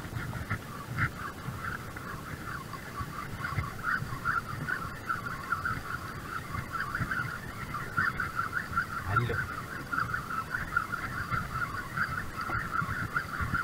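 Fishing reel running with a fish on the line: a continuous, fast-fluttering buzz.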